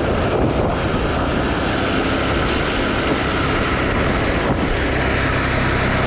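Arctic Cat ATV engine running steadily at cruising speed, with the noise of its tyres rolling over a gravel trail.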